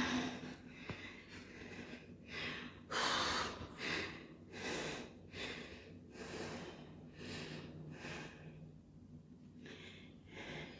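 A woman panting hard, quick heavy breaths in and out, winded from climbing many flights of stairs. The breathing pauses briefly about three-quarters through, then starts again.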